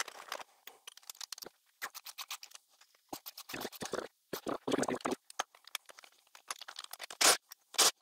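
Irregular metal clicks and scrapes from a hand ratchet loosening the rocker arm nuts on a 350 small-block Chevy's cylinder head, thicker in the middle, with a few louder clacks near the end.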